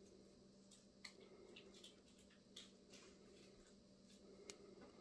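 Near silence: a few faint ticks and rustles as fingers handle monofilament fishing line and a hook, over a faint steady hum.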